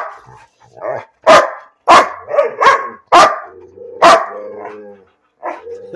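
A dog barking repeatedly at close range, about half a dozen sharp barks. About four seconds in there is one longer drawn-out whining call, then a final bark near the end.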